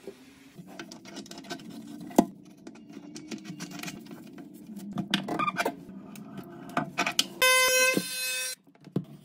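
Clicks, knocks and rubbing from hands working faucet and supply-line fittings, with one sharp knock about two seconds in. Near the end a cordless power tool runs for about a second with a steady high whine while cutting a PVC drain pipe, then stops suddenly.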